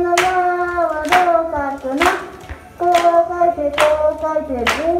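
A voice singing long held notes, sliding into each one, with a sharp hand clap about once a second.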